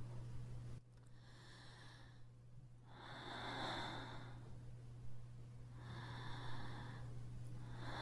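A person breathing audibly and slowly: four long breaths, each about a second, over a steady low hum.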